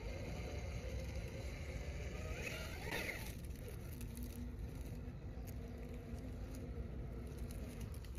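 Small brushless electric motor of an Axial Capra RC rock crawler running at a slow crawl, with a brief rising whine about three seconds in as it powers up the rocks. After that comes a steady low motor hum with small clicks of tyres and pebbles on rock.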